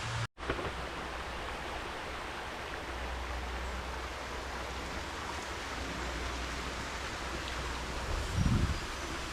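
Steady outdoor background noise, a even hiss with a low hum beneath it. The sound drops out for a moment just after the start, and a brief low rumble swells up near the end.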